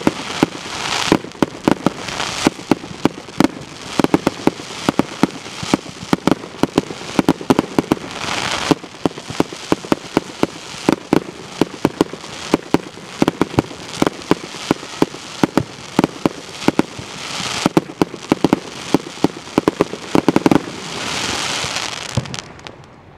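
Fireworks going off in quick succession: a dense string of sharp bangs, several a second, with swells of hissing crackle every few seconds. The barrage stops abruptly near the end.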